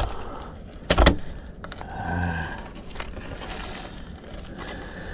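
Handling knocks as a freshly caught crucian carp is laid on a measuring board: a couple of sharp knocks about a second in, then a faint click, over a low steady background hiss.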